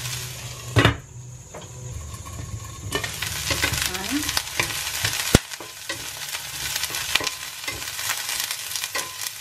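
Carrots and broccoli sizzling in hot oil in a stainless steel frying pan, stirred with a wooden spatula that scrapes and clicks against the pan. There is a loud knock just under a second in, the sizzle is softer for about two seconds after it, and a sharp click comes about five seconds in.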